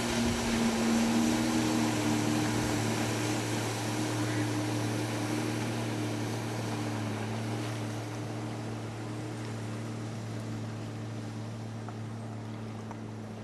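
Watercraft engine running at a steady pitch over water and wind noise, gradually growing quieter.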